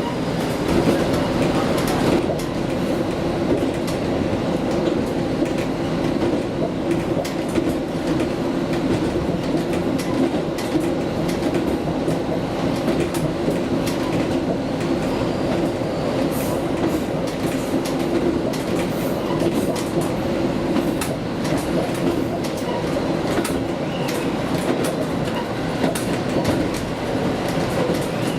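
Diesel railcar running along the line: a steady engine drone with the clickety-clack of its wheels over rail joints, and scattered sharp clicks throughout.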